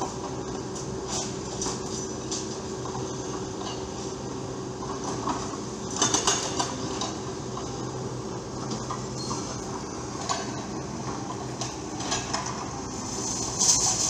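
Excavator diesel engines running steadily at a construction site, with irregular metallic clanks and knocks, a cluster about six seconds in and more near the end.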